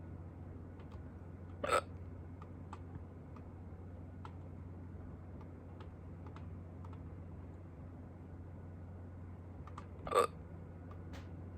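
A woman hiccuping twice, once about two seconds in and again about eight seconds later, each a single short hiccup. Faint scattered ticks and a low steady hum run underneath.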